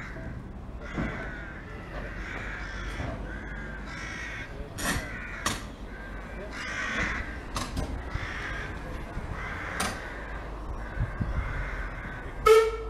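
Crows cawing repeatedly, short harsh calls every second or two, with several sharp clicks, the loudest near the end.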